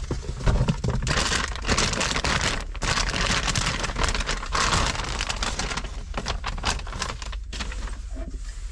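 Plastic packaging crinkling and rustling as it is handled, with many irregular small clicks and knocks.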